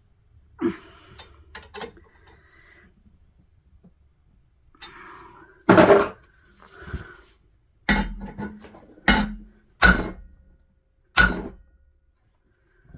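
Hammer striking metal: a few lighter knocks, then five heavy blows spaced unevenly, each a second or two apart, struck to shock loose a seized bolt.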